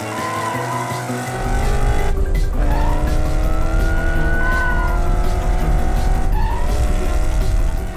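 Cartoon race-car sound effects: an engine running and tyres squealing, over background music. A deep engine rumble sets in about a second and a half in and holds.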